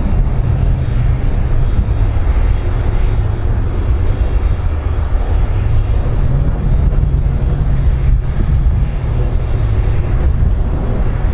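Airbus A310-304's twin General Electric CF6-80C2 turbofan engines running on the runway: a loud, steady, deep rumble with a rushing hiss above it.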